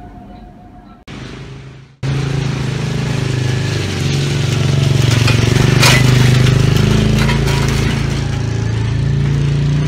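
A motor vehicle's engine running close by: a loud, steady low hum that starts abruptly about two seconds in, with a sharp click near the middle.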